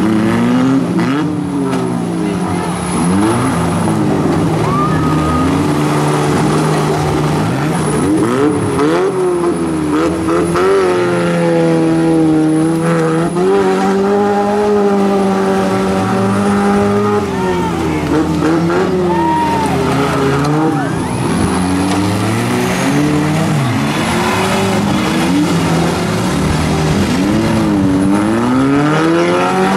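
Several four-cylinder demolition derby cars' engines running and revving at once, rising and falling in pitch as the cars push each other. In the middle, one engine is held at high revs for several seconds while its tyres spin and smoke in the mud.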